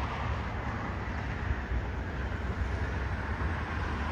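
Jet noise from an American Eagle regional jet's two rear-mounted turbofans as it lands, heard from a distance as a steady low rumble with a hiss above it.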